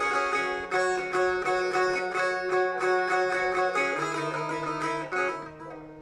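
Bağlama (long-necked Turkish saz) played solo: a fast plucked melody over a steady low drone. It is an instrumental passage between sung verses of a Turkish folk song.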